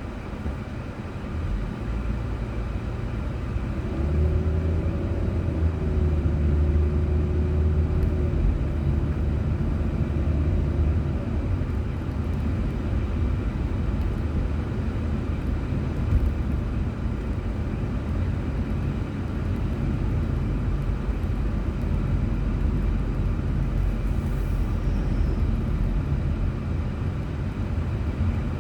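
Car driving on a city road, heard through a dashcam: steady road and engine rumble, with a louder engine hum coming in about four seconds in and fading after about eleven seconds.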